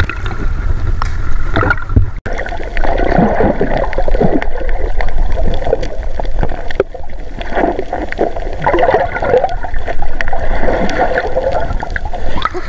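Sea water heard through a submerged camera: muffled gurgling and bubbling. Before it, about two seconds in, there is a sudden break from the low wind rumble and water noise at the surface.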